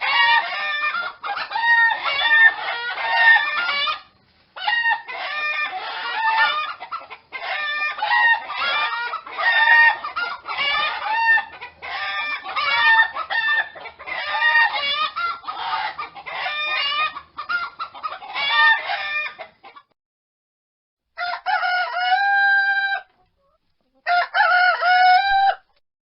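Chickens clucking continuously for about twenty seconds, with short breaks. After a brief pause, two longer calls held at a steady pitch follow near the end, sounding like a rooster crowing.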